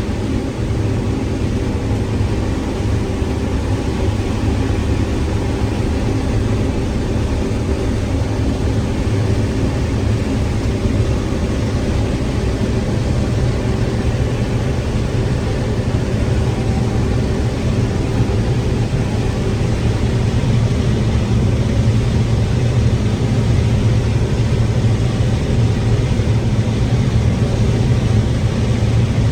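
Combine harvester running steadily while harvesting corn, heard from inside the cab: an even, unchanging low drone of engine and machinery.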